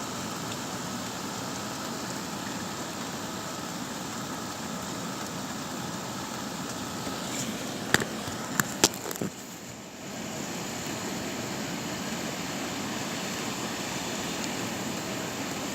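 Steady hiss of rain in a storm. A few sharp clicks come about eight to nine seconds in, and the hiss briefly drops away before returning.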